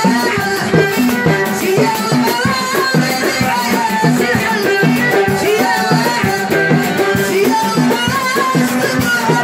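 Live Moroccan chaabi music in the aita style: a chikha sings into a microphone over a fast, steady beat of drum kit and percussion.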